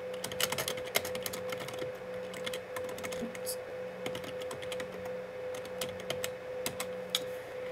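Typing on a computer keyboard: irregular keystroke clicks, a quick run in the first second and then scattered taps. A steady hum runs underneath.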